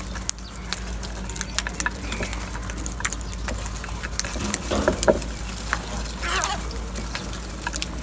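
A flock of house crows feeding at a bowl of grain: many sharp clicks of beaks pecking, with a couple of harsh caws about five and six seconds in, over a steady low hum.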